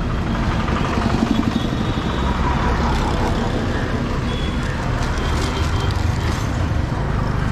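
Busy road traffic: a steady mix of vehicle engines running and passing, with a constant low rumble.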